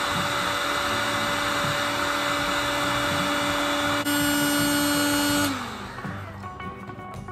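Heat gun running with a steady fan whine. About four seconds in it steps up louder and a little higher, then about a second and a half later it is switched off and the fan winds down with a falling pitch.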